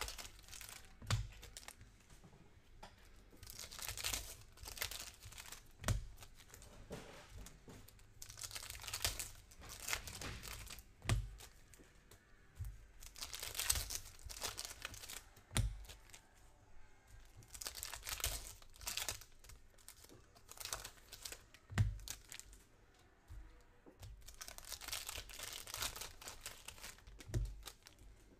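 Foil trading-card pack wrappers being torn open and crinkled, in repeated stretches of rustling and crackling. Dull thumps come about every five seconds.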